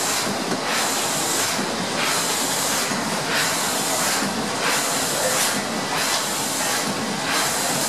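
1926 Maffei two-cylinder steam engine of a paddle steamer running, a steady hissing that swells in a regular beat about twice a second.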